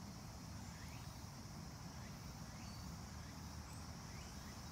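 Faint outdoor ambience: a steady, high-pitched insect drone with short rising chirps about once a second, over a low rumble of wind on the microphone.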